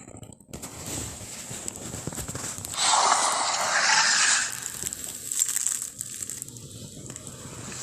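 Giant crocodile monster sound effect: a low rasping rumble, then a loud breathy hiss about three seconds in that lasts over a second before dying down to a quieter rasp.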